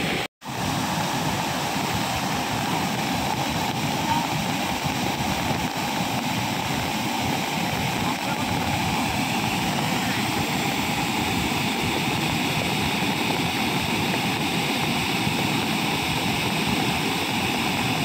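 Waterfall in monsoon flood: a wide fall of muddy floodwater giving a steady, even rush, broken by a split-second dropout just after the start.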